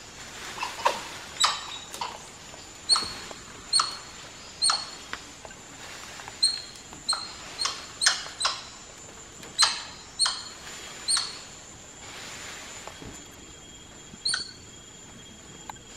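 Spider monkeys giving short, sharp, high-pitched calls in an irregular series of about fifteen, with a pause of a couple of seconds near the end: the agitated calling of a troop disturbed by an intruder below.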